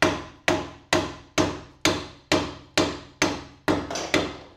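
A hammer striking a block of wood held against a VW swing-axle spring plate, about ten even blows, two a second, knocking the jacked-up plate in past its stop.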